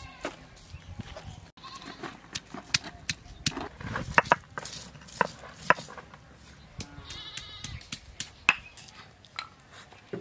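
Stone roller knocking and crushing garlic cloves and ginger on a flat stone grinding slab (shil-nora), with irregular sharp clicks of stone on stone. A farm animal gives one long call about seven seconds in.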